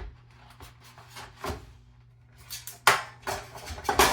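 A few sharp knocks and clunks of hard objects being handled, the loudest near the end, over a faint steady low hum.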